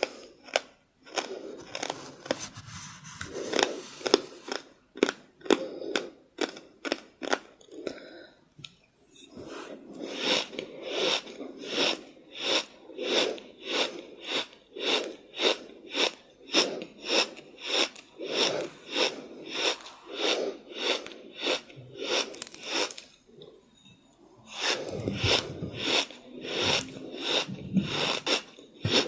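Close-up chewing of something crunchy, a steady rhythm of about two crunches a second, broken by two short pauses, about eight seconds in and again near the end.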